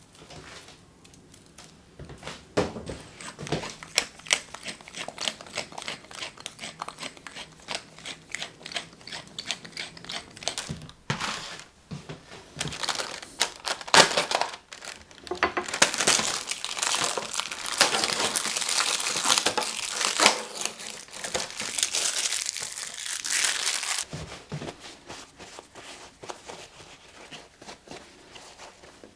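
Plastic film crinkling and tearing as a supermarket punnet of shiitake mushrooms is unwrapped. The crinkling grows into a long, dense stretch past the middle, after scattered crackles and clicks in the first several seconds, and gives way near the end to soft rubbing of a paper towel wiping a mushroom cap.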